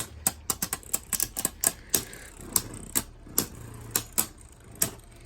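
Two Beyblade Burst spinning tops, Turbo Achilles A4 and its opponent, battling in a stadium: a rapid, irregular clatter of sharp clicks, several a second, as the tops strike each other.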